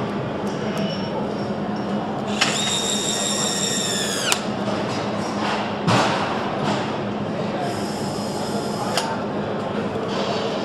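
Factory assembly-line noise over a steady hum. A power screwdriver whines for about two seconds and winds down as it stops, a knock follows, and a second, thinner tool whine comes later.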